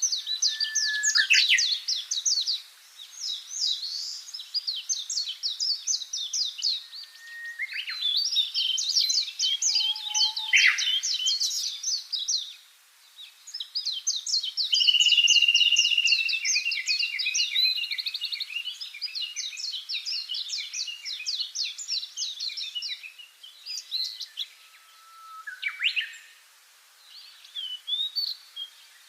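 Songbirds singing in long runs of fast, high twittering trills and warbled phrases, with short pauses between phrases. The song thins out near the end.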